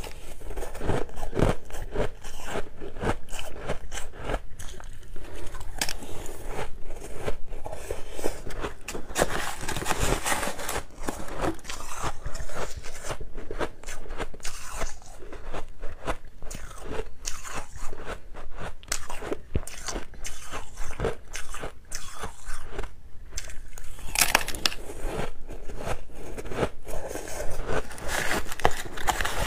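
Fluffy white ice being bitten and chewed by mouthfuls: a dense, continuous run of crunching.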